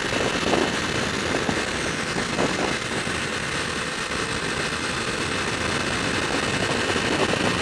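Steady rush of wind and road noise while riding a Kawasaki Ninja 250R motorcycle at road speed, with crackling wind buffeting on the microphone and the bike's engine running underneath.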